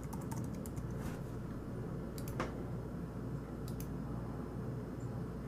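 Quiet room tone with a steady low hum and a few faint, scattered clicks from working the computer; the loudest click comes about two and a half seconds in.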